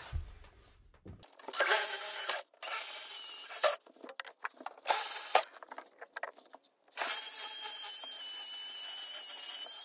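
Cordless drill boring holes into a concrete wall. It runs in several short bursts, then in one longer steady run with a high whine from about seven seconds in.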